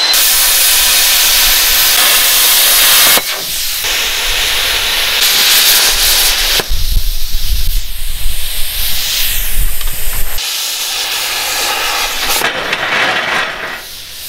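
A run of short metal-fabrication clips that change every few seconds, dominated by loud steady hissing. In the middle stretch, steel is cut with a torch, and the hissing comes with an uneven low rumble.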